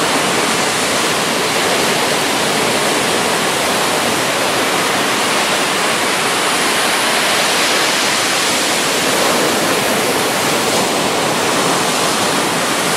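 Ocean surf breaking on the beach, a steady rushing noise that neither swells nor pauses.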